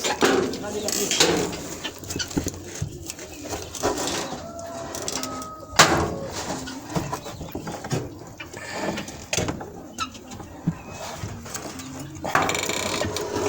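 Farmyard poultry sounds: short bird calls among scattered clicks and knocks, with a sharp snap about six seconds in, and voices in the background.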